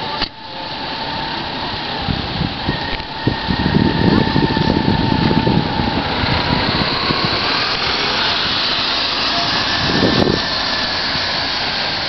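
A car towing a covered box trailer drives past, its tyre and engine noise building up and passing near the end. Under it runs a steady outdoor noise, with heavy low rumbling gusts about four and ten seconds in.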